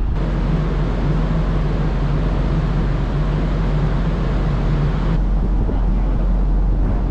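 Wind rushing over the microphone on a ferry's open deck, over a steady low hum from the ship's machinery that drops out about five seconds in.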